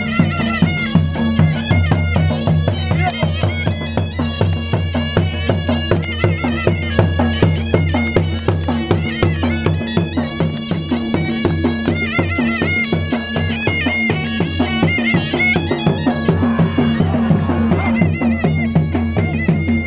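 Live Balochi folk dance music: a surna (double-reed shawm) plays a continuous melody over a steady dhol drum beat.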